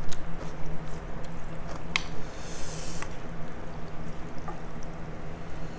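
Chopsticks and a spoon stirring herbs into a bowl of noodle soup: soft wet squishing and sloshing of broth, with a sharp clink of a utensil on the bowl about two seconds in. A low steady hum runs underneath.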